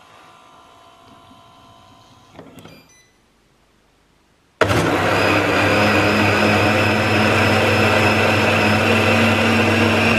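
Byzoo vacuum blender's motor switching on abruptly about halfway through and running at a steady speed. It is blending a thick tomato-and-pepper batter with freshly added psyllium husk.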